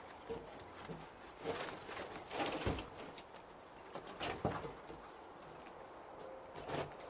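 Footsteps crunching through woodland undergrowth: a handful of irregular steps with cracks and rustles, the loudest a little after two seconds in and again about four seconds in.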